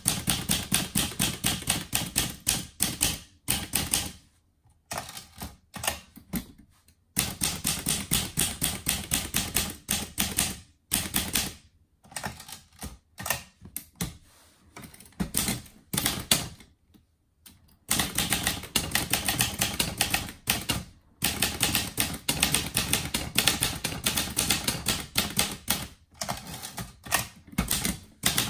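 Olivetti Lettera 31 portable typewriter being typed on: runs of sharp keystrokes at about five a second, broken several times by short pauses.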